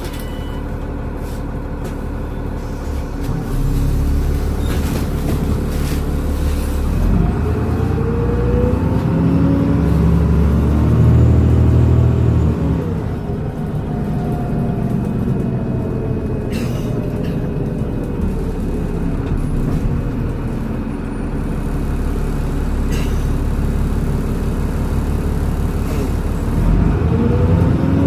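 Transbus Trident bus with a Voith automatic gearbox pulling away and running. The engine drone rises in pitch with a whistling whine from the turbocharger over it, eases off, then rises again near the end. A few brief clicks or knocks are heard along the way.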